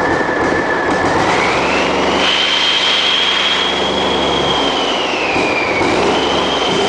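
Cummins ISX inline-six diesel engine running and being revved. Its high turbo whine climbs about a second in, holds, drops back around five seconds in, and climbs again near the end.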